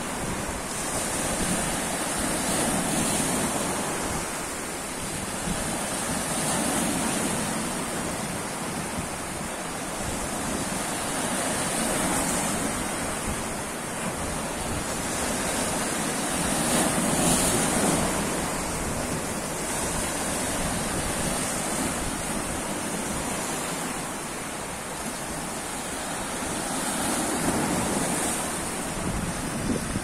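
Sea waves washing and breaking against a rocky shore, the surf swelling and easing every few seconds.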